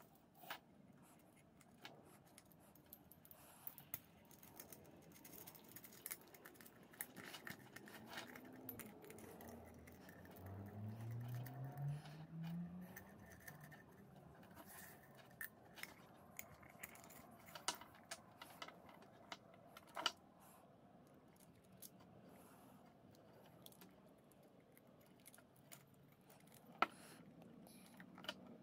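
Faint clicks and small metallic rattles of a threaded metal tube and a flexible metal hose being handled and screwed onto a metal canister. Around ten seconds in, a low hum rises in pitch for a few seconds and fades.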